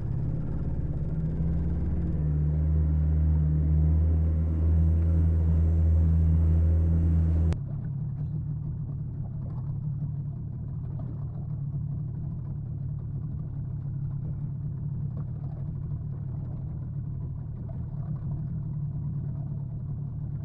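Yamaha 30 hp outboard motor running under way, a loud steady low drone. About seven seconds in the sound cuts off suddenly to a quieter steady low rumble.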